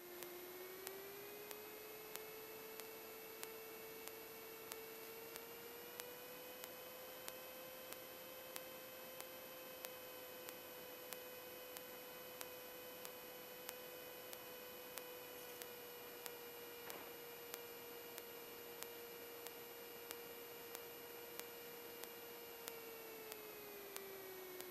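Faint electrical whine on the Cessna 172's intercom audio feed, with faint regular ticks about one and a half times a second. The whine's pitch rises a little in the first few seconds and drops near the end, following the engine's rpm as the aircraft taxis.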